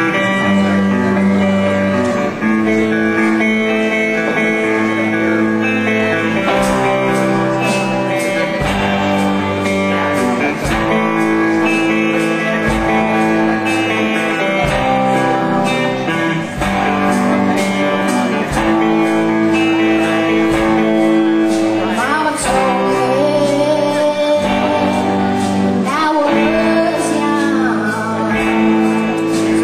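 Live rock band playing a slow, guitar-led song intro. A guitar starts alone, drums and cymbals come in after several seconds, and a singing voice joins in the last few seconds.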